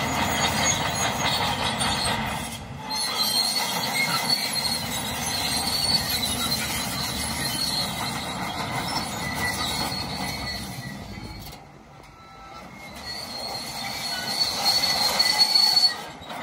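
Crawler bulldozer at work on rock fill: steel tracks squealing and clanking over its running diesel engine. The noise dips briefly about three quarters of the way through.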